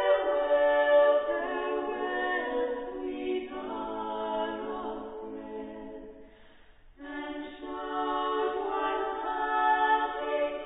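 A cappella choir singing sustained chords as background music, with a brief pause about two-thirds of the way through before the next phrase begins.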